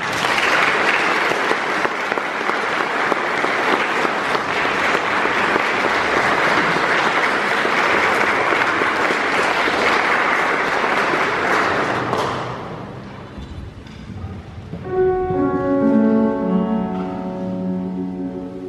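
Audience applauding for about twelve seconds, then dying away. About fifteen seconds in, an electric keyboard sounds a few sustained notes, one entering after another.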